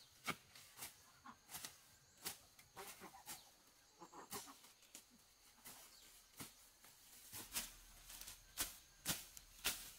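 Short, crisp rustles and snaps of grass and weeds, roughly one every half second and louder near the end, as weeds are hacked with a long-handled tool and pulled up by hand.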